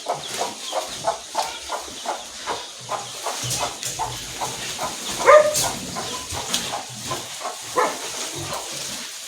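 Chickens clucking in a steady run of short notes, about two to three a second, with one louder, longer call about five seconds in.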